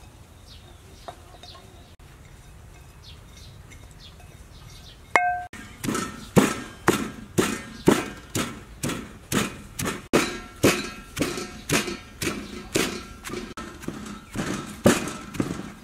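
Wooden pestle pounding chopped lemongrass, galangal, turmeric and garlic into a paste in a stone mortar. It sets in about five seconds in and keeps a steady rhythm of about two dull thuds a second. A brief ringing clink comes just before the pounding starts.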